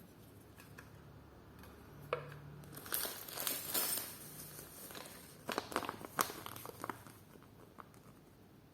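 Crinkling and crackling of plastic packaging being handled, in irregular bursts with a few sharp clicks.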